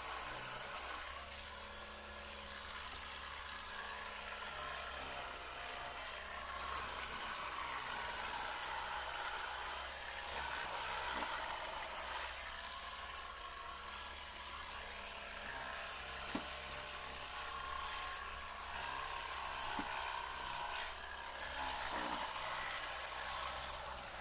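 Old Draper orbital sander running steadily against sandpaper on a wooden door, with a few light knocks. The motor is on the way out and giving off a burning smell.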